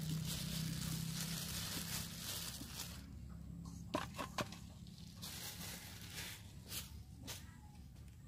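A wet fish being laid into a metal basin gives a quick run of three sharp knocks about four seconds in, and two lighter ones near seven seconds. Under it is a low steady hum with hiss, which drops away after about three seconds.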